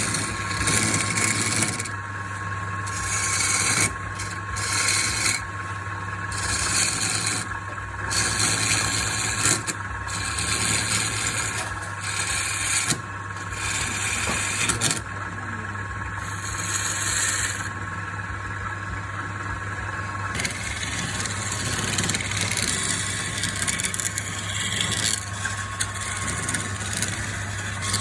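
A motor running steadily with a constant low hum, with repeated bursts of hissing, rasping noise about a second long, typical of a power tool working wood.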